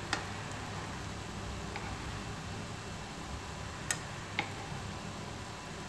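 Dough balls frying in hot oil, a steady even sizzle, with a few light clicks of a metal spoon against the pan, the clearest two about half a second apart past the middle.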